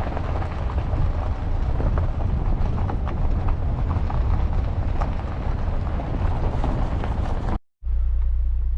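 Road and wind noise of a moving vehicle heard from inside: a heavy low rumble with scattered small ticks and rattles. Near the end it cuts out abruptly and comes back as a steadier low drone.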